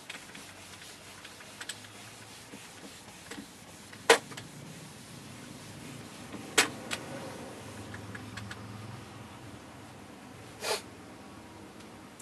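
Whiteboard eraser rubbing across a whiteboard, wiping it clean, with a few sharp knocks against the board, the loudest about four seconds in. A short scuff near the end.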